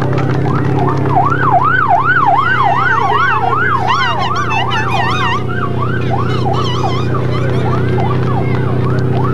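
Vehicle siren in a fast yelp, a rising and falling wail about three times a second, loudest in the first half and fading somewhat later. A steady low engine hum runs underneath.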